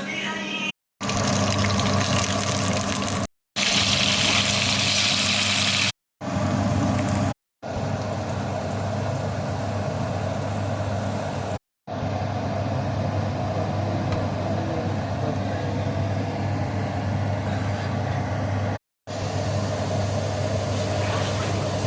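A steady machine-like hum with a hiss over it, heard as a run of short clips that each cut off abruptly into a moment of silence.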